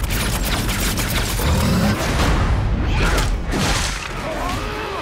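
Action-trailer sound design: a string of heavy booms and hits with mechanical clanking over a steady low rumble and score music, with a few sliding tones near the end.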